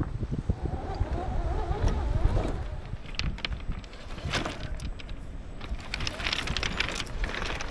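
Yikong YK4083 RC crawler driving over loose beach pebbles. Its electric drive whines and wavers in pitch over the first couple of seconds, then many quick crunching clicks follow as the tyres roll over and shift the stones.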